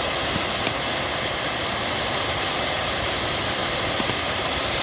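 Waterfall: water pouring and splashing onto rocks, a steady, even rush of noise with no change.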